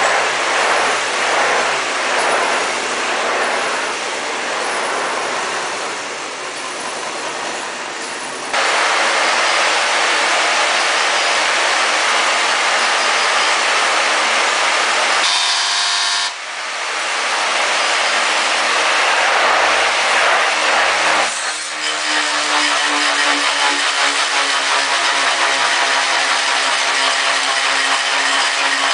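Electric motors of an experimental spinning-wheel rig running, giving a loud, continuous mechanical whirr. It jumps abruptly louder about eight seconds in, shifts briefly in the middle, then settles into a steady hum with a held low tone for the last several seconds as the assembly spins.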